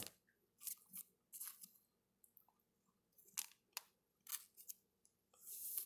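Faint, scattered rustles and light ticks of a baseball card being handled and slid into a plastic card sleeve, with a longer rustle near the end.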